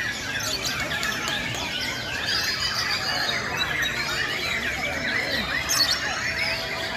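Many white-rumped shamas (murai batu) singing at once in a dense chorus of overlapping, gliding song phrases.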